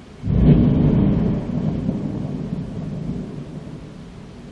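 Thunderclap starting suddenly about a quarter second in, then rumbling and slowly fading over the next few seconds.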